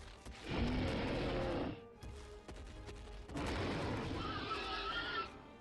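Two loud dinosaur calls from an animated film, each about a second and a half long and a couple of seconds apart, over the film's music.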